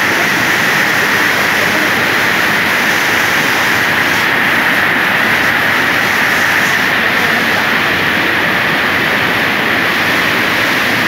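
Rain-swollen river water pouring over a weir and churning in the pool below it: a loud, steady rush.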